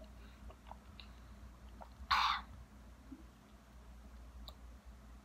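A woman drinking from a glass: faint small mouth clicks as she sips, then one short sharp breath of air about two seconds in.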